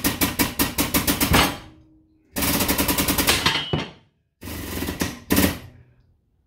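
Air-over-hydraulic pump of a 10-ton benchtop press chattering in rapid even strokes, about eight a second, as it drives the ram down onto a steel jig to turn a panel edge. It stops about a second and a half in, then runs again in two short bursts of about a second each.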